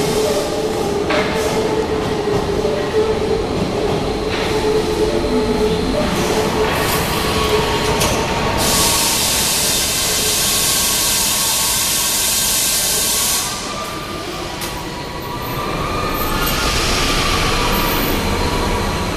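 Paris Métro MF77 train running into the station: a steady hum with a held tone and clicks of wheels over rail joints. Past the middle comes a loud hiss lasting about five seconds. A weaker hiss and faint pitched tones follow near the end.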